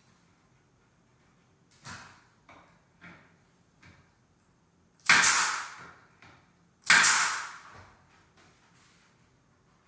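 Nail gun firing twice, about two seconds apart, nailing a glued door-casing miter; each shot is a loud bang with a short hissing tail. A few lighter knocks of wood being handled come before.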